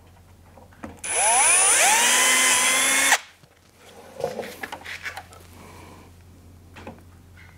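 Power drill spinning up and running for about two seconds while drilling a 3.5 mm pilot hole through a plastic grille, its pitch rising then holding steady before it stops suddenly. A few light clicks and knocks follow.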